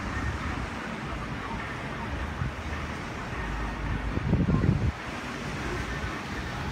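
Outdoor ambience: wind rumbling on the microphone over a steady background hiss, with one louder buffet of wind about four seconds in.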